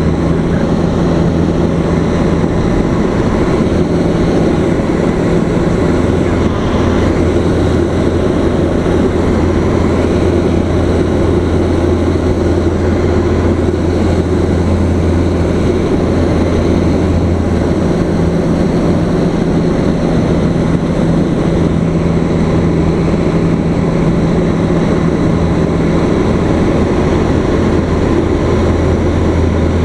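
Single-engine propeller airplane's engine and propeller droning steadily in flight, heard from inside the cockpit with a constant low hum under the cabin noise.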